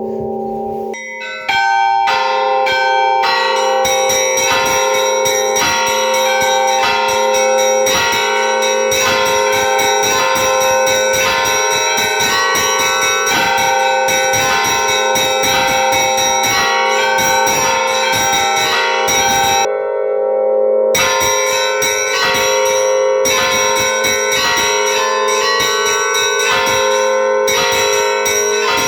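Church bells ringing a fast, dense peal: many bells of different pitches struck over and over above a steady low ringing hum. About two-thirds of the way through, the higher bells stop for about a second while the low ones keep sounding.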